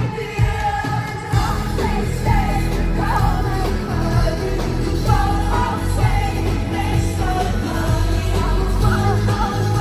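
Live pop-rock band playing, with a woman singing lead over drums, bass, guitars and keyboards; the low end of the bass and drums fills in about a second in.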